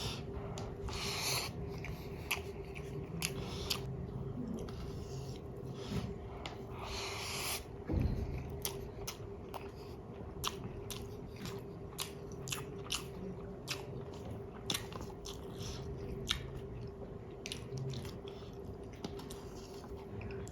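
Close-miked chewing of chicken biryani, with many sharp wet mouth clicks and a few longer noisy patches in between.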